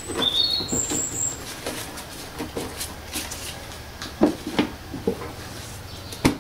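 Plastic knocks and clicks of a Mini Cooper's plastic airbox being handled as the panel air filter is fitted and the lid pushed back down, irregular, with the sharpest clunk just before the end.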